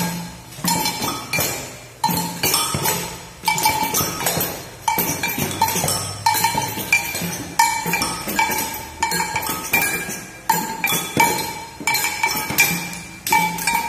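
A group of children playing hand percussion together, pandeiros, a frame drum and shakers, in a loose steady beat. A ringing, bell-like metallic stroke comes about every two-thirds of a second.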